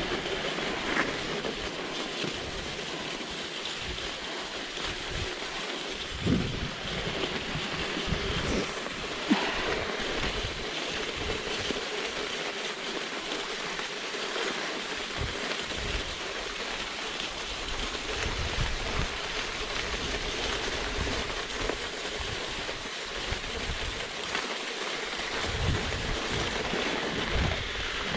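Rossignol Evo cross-country skis sliding over a groomed, crusty snow track, giving a steady scraping hiss. A few short knocks come through, the sharpest about nine seconds in.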